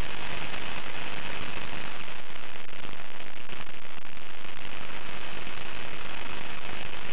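Steady hiss of videotape static: the even noise of tape with no recorded sound, at a constant level throughout.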